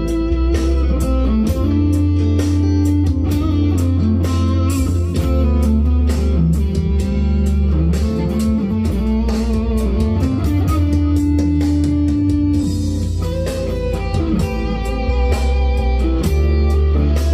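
Electric guitar, a Leo Jaymz SG copy, playing a lead line with long held notes over a smooth groove backing track in A minor with bass and drums.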